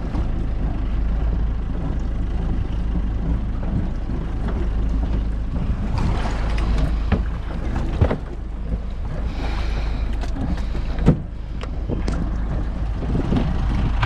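Steady low rumble of a fishing boat at sea, with wind on the microphone, broken by two sharp knocks about three seconds apart.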